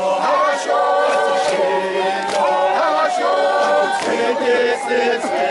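Group of Zulu men singing an ijadu song together, unaccompanied, several voices at once holding and sliding between long notes.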